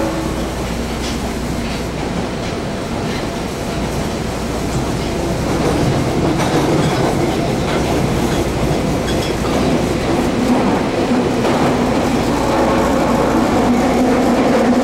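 Osaka Subway 10 Series train heard from inside the car, running through the tunnel: steady wheel-and-rail rumble with the clack of rail joints, growing louder about six seconds in. From about ten seconds in, a steady hum from the train's Mitsubishi armature-chopper traction control rises under the rumble.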